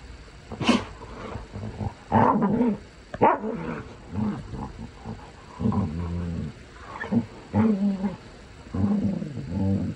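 Two dogs play-wrestling, one a pit bull type, growling and snarling in repeated bouts, with two sharp, higher sounds about a second in and again about three seconds in.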